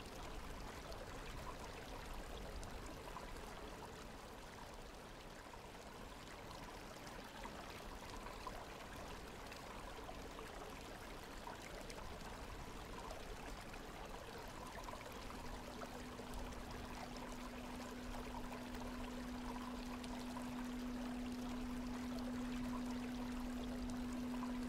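Steady rush of flowing water. About fifteen seconds in, a single low, steady singing-bowl tone joins it and holds, slowly growing louder.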